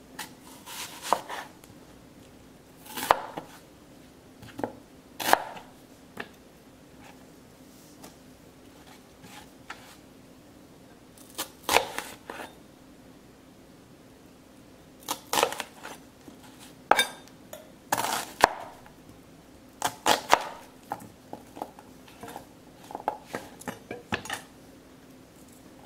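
A chef's knife cutting through a whole onion and striking the cutting board: irregular sharp chops, some in quick pairs or clusters, with pauses between them, over a faint steady hum.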